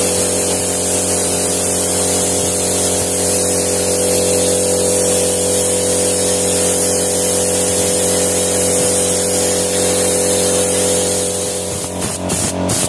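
Gravity-feed spray gun hissing steadily as it sprays paint onto a brake caliper, over a steady motor hum. Near the end the hiss eases and a few sharp clicks follow.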